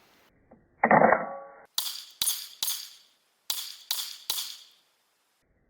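A short handling clatter, then six shots from a FightLite SCR pistol, fired as two quick strings of three about a second apart.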